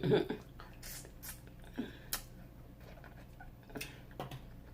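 Eating sounds: short, scattered crunches and mouth clicks from biting and chewing fried food.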